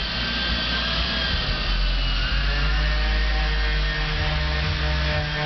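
Hand-held electric power tools, sanders and a grinder, running steadily on wooden boat planking; their motor pitch shifts about two seconds in.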